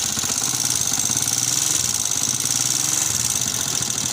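Honda CG125 air-cooled single-cylinder four-stroke engine idling steadily with a loud tick-tick running through it. The engine is blowing smoke from its breather pipe, from stuck, worn piston rings and a scored cylinder sleeve.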